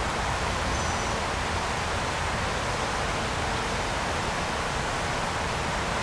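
Steady rushing noise, even throughout, with no distinct events: outdoor background noise on the microphone.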